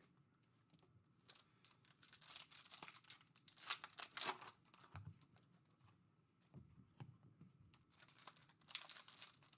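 Foil trading-card pack wrapper being torn open and crinkled by hand, faint, in scattered short crackles with a couple of brief pauses.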